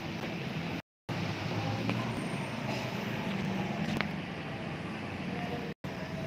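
Steady low background rumble that cuts out completely twice, briefly: once about a second in and once near the end.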